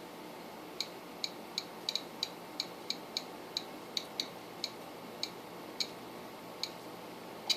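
Light, sharp clicks from the front-panel rotary encoder knob of a Korad KA3005P bench power supply being turned step by step to adjust the voltage. The clicks come irregularly, about two or three a second, and grow sparser toward the end.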